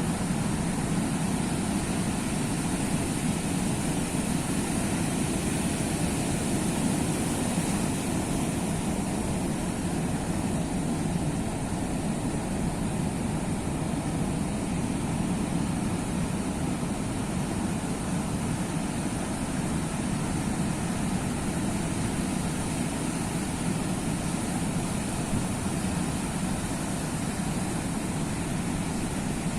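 Sea surf, an even low wash of waves with no single breaker standing out.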